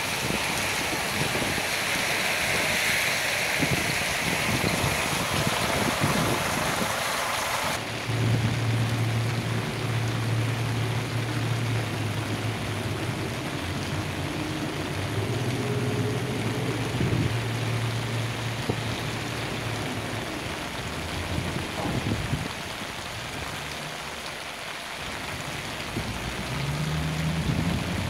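Steady rain hiss. About eight seconds in the sound changes abruptly, and a heavy engine's low steady drone sits under the rain, rising briefly in pitch near the end.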